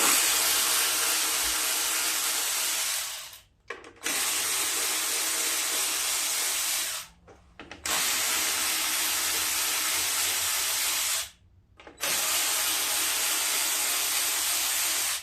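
Cordless power drill/driver with a 7 mm socket running in four bursts of about three seconds each, with a steady motor whine, backing out the bolts that hold the mower's plastic top.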